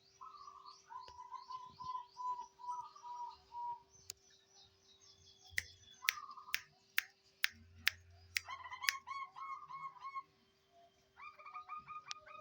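Zebra dove (perkutut) cooing in runs of short, rapidly repeated notes, with fainter high chirps over it. A series of about eight sharp clicks, roughly two a second, comes in the middle.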